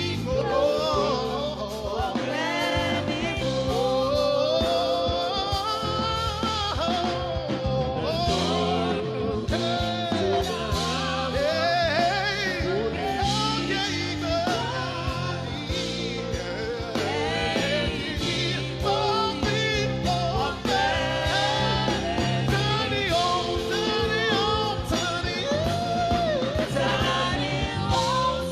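Live gospel worship music: singing voices over a band, with a steady bass line and keyboard underneath.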